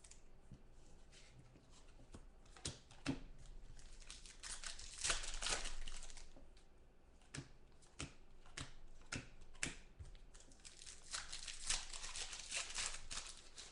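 Trading card pack wrappers crinkling and tearing, with cards being handled in a run of small clicks and rustles.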